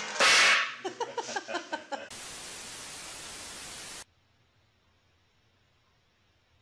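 A loud sudden burst, then a run of short pitched cries. These give way to about two seconds of steady static hiss that cuts off abruptly, leaving near silence.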